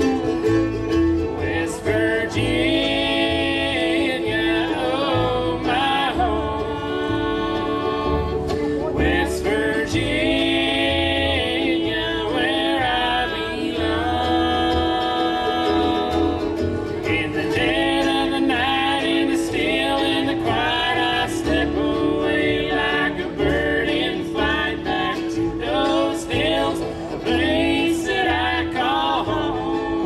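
Live bluegrass band playing: fiddle, mandolin, acoustic guitar and upright bass, with three voices singing in close harmony.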